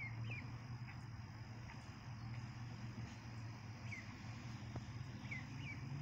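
Ducklings giving a few short, high, falling peeps: two right at the start, one about four seconds in and two close together near the end. A steady low hum runs underneath.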